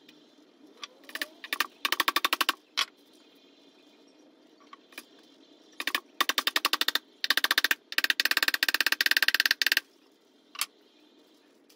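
Small hammer tapping a metal butterfly ornament onto the wooden header of an enclosure: fast runs of light taps, many to the second, in four bursts with a few single knocks between.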